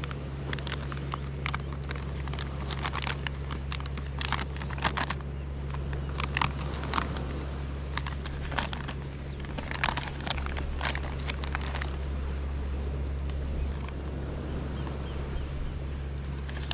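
Plastic coffee pouch crinkling and rustling as it is handled: a run of irregular crackles and clicks over a steady low hum.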